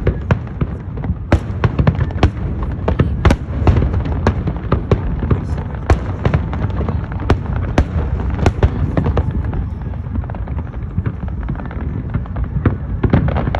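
Fireworks display: a rapid, irregular run of sharp bangs, several a second, over a continuous low rumble.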